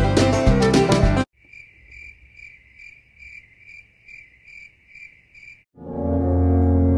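Cricket chirping, about two evenly spaced chirps a second, after a plucked-string tune cuts off abruptly. Near the end a loud, steady, low drone starts suddenly.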